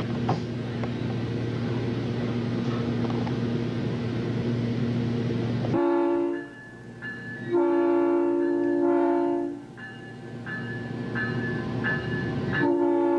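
South Shore Line electric commuter train running with a steady rumble and hum, then sounding its multi-tone horn for a grade crossing ahead: a short blast about halfway through, a long blast a second later, and another long blast near the end.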